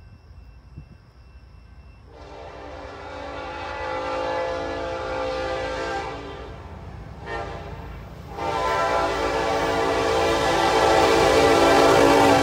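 An approaching train locomotive's multi-note air horn. It gives a long blast about two seconds in, a brief toot a few seconds later, then another long blast that gets louder toward the end, over a low rumble from the train. This is the closing part of the long-long-short-long warning signal that locomotives sound for a grade crossing.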